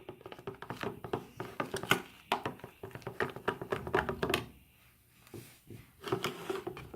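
Slime mixture of glue, lotion and shaving cream being stirred in a bowl: irregular clicks and knocks of the stirring, easing off for a moment about four and a half seconds in.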